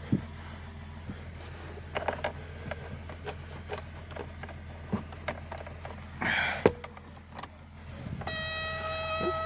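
Keys jangling and scattered clicks and knocks as someone climbs into a snowed-over Suzuki Samurai's cab and works the ignition. About eight seconds in, a steady electrical buzzer tone starts as the key is switched on and the glow plugs are energised.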